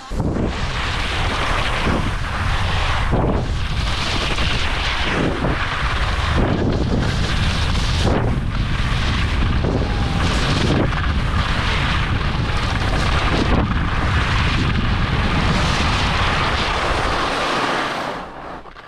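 Wind buffeting an action camera's microphone during a fast ski run, with skis scraping over icy snow; the scraping swells and eases every second or two with the turns. The rush dies away near the end.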